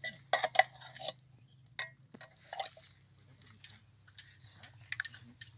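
A metal fork clinking and scraping against an open tin can while chopping and scooping stewed beef out of it, with soft squelches of the meat; a few sharp clinks come irregularly, mostly in the first half.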